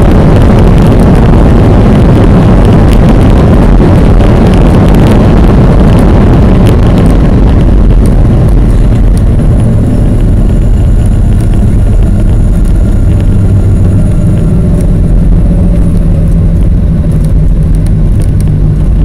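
Boeing 737 cabin noise just after touchdown: a loud rush of engine and air noise as the jet slows on the runway, easing off about eight seconds in to a steadier low engine hum as it rolls out, heard from inside the cabin.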